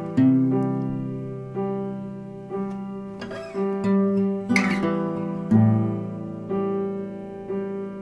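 Instrumental music of slow single notes, each starting sharply and ringing away, about one a second.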